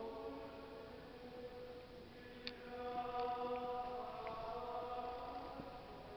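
Choral singing in slow, long-held notes, with one sharp click about two and a half seconds in.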